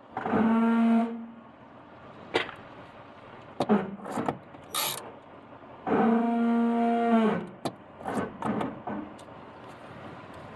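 Truck brakes letting out a low, steady-pitched groan twice, the first about a second long and the second about a second and a half, some five seconds apart, with several sharp clicks and knocks in between.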